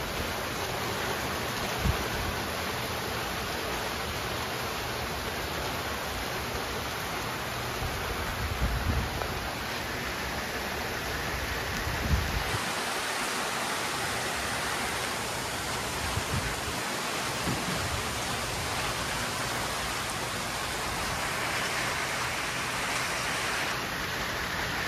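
Heavy rain falling steadily on a lawn and trees: an even hiss of rain throughout, with a few brief low thumps.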